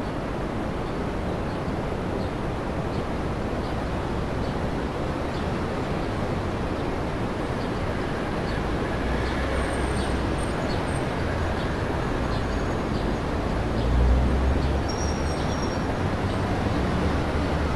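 Distant city traffic noise: a steady, dense hum of road traffic with a deeper rumble swelling briefly about fourteen seconds in, as a heavy vehicle passes.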